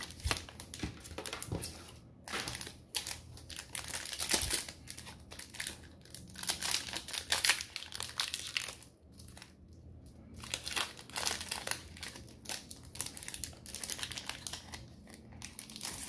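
Foil booster pack wrapper crinkling in the hands and being torn open, in irregular bursts of rustling.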